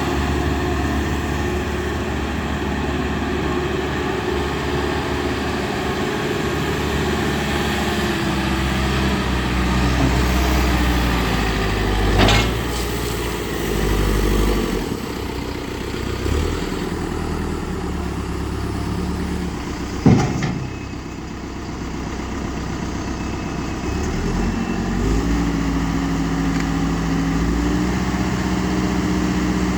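Diesel engine of a 2011 Caterpillar 420E backhoe loader running, its pitch dropping a little past a third of the way in and rising again near the end. A sharp clank about twelve seconds in and another at about twenty seconds.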